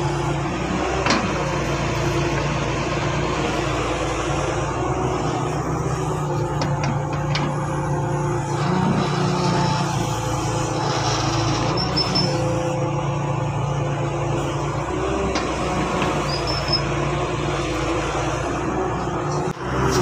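Diesel engine of a tracked excavator running steadily under load as it digs soil, with a few light knocks.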